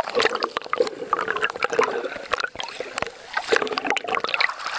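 Sea water splashing and lapping in quick, irregular little strokes.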